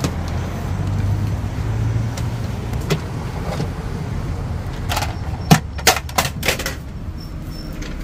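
A plastic Henry vacuum cleaner knocking and clattering against the car seat as it is handled and lifted out, about half a dozen sharp knocks between three and six and a half seconds in, the loudest one near the middle. A steady low rumble runs underneath.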